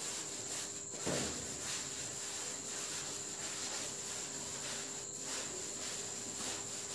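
A blackboard duster rubbing chalk off a blackboard in repeated wiping strokes, over a steady high-pitched tone.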